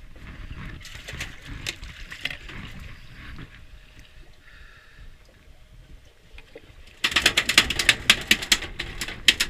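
Fishing reel's drag clicking rapidly as line pulls off, as a hooked fish takes line. It starts suddenly about seven seconds in, loud and fast. Before that there is softer boat and handling noise.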